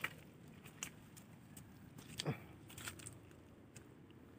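Faint, irregular crunching steps, one roughly every second.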